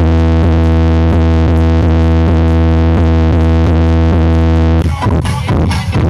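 Electronic dance music played very loud through a large stacked sound system with six subwoofers: a held synthesizer chord over a heavy, steady bass drone, with the drum beat coming back in about five seconds in.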